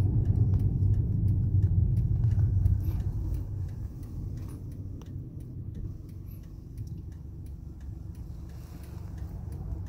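Car interior road and engine rumble, heard from inside the cabin, that drops away about three or four seconds in as the car slows at red traffic lights, leaving a quieter low hum with faint, regular ticks.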